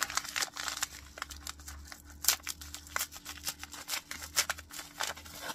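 Small plastic and paper packet being torn and peeled open by hand: irregular crinkling, crackles and tearing, with one louder snap a little over two seconds in.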